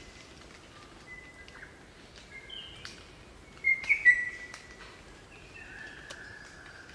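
A group of crimson rosellas calling: scattered whistled notes and short sharp chips, with a louder cluster of notes about four seconds in and a longer, slightly falling whistle near the end.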